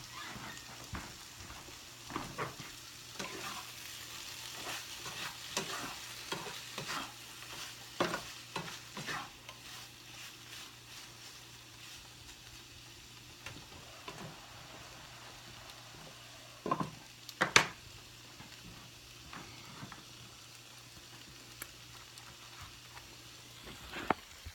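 Mango sizzling in a frying pan while it is stirred, with scattered clicks and scrapes of a utensil against the pan. The hiss is strongest in the first half. A couple of sharp knocks come about 17 seconds in, and another comes near the end.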